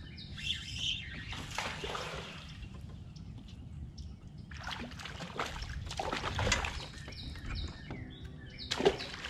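Water trickling and sloshing against a kayak, with irregular splashes and knocks, and a few bird chirps.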